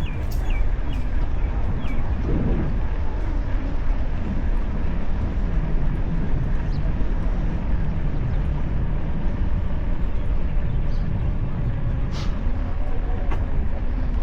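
Wind buffeting a bicycle-mounted action camera's microphone during a ride, a steady low rumble, with a few faint clicks.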